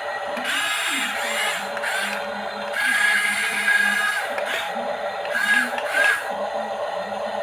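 Small electric motors of a radio-controlled toy vehicle whirring in several bursts over a steady hum, each burst with a high whine.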